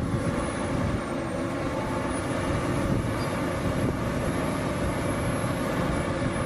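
Diesel engines of a large hydraulic excavator and a crawler bulldozer running steadily at work, with wind buffeting the microphone.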